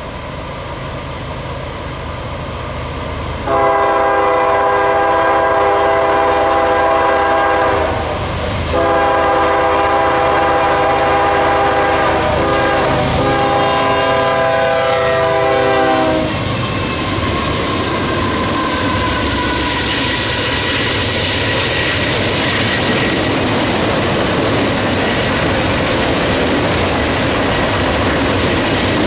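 CSX diesel freight locomotives approaching with a growing engine rumble, then sounding their air horn: a long blast starting about three seconds in, a brief break, and a second, longer blast that stops about sixteen seconds in. The locomotives then pass close, and the engine noise and rail clatter of the long container train rolling by carry on.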